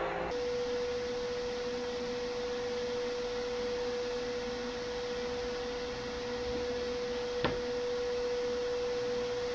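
A steady pure tone, one unchanging pitch held throughout over faint hiss, with a single sharp click about seven and a half seconds in.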